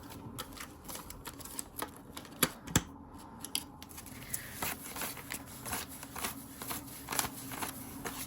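Paper banknotes being counted and handled by hand: a run of irregular soft flicks and rustles, with two sharper clicks close together a little over two seconds in.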